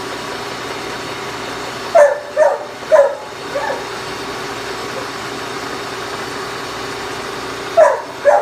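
A dog barking in short bursts, three sharp barks about two seconds in, a softer one after them, and two more near the end. Under the barks, a Brown & Sharpe universal milling machine runs steadily with its cutter still turning.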